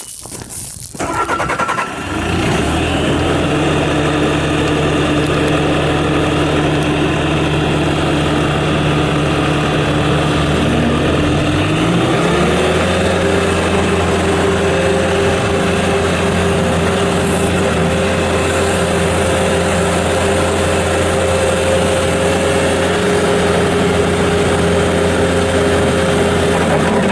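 Bobcat T650 skid steer loader's diesel engine cranked and catching about a second or two in, then running steadily at low idle. About twelve seconds in the throttle is raised and the engine climbs to a higher steady speed and holds there.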